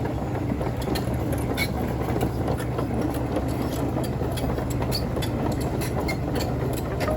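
Heavy machinery's diesel engine running steadily with a low hum, with scattered sharp metallic clicks and knocks over it.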